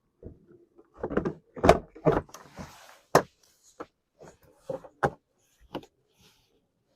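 Plastic interior trim panel being pushed and snapped into place on a Ford Excursion's rear barn door: a run of sharp knocks and clicks as its clips seat, loudest about two seconds in.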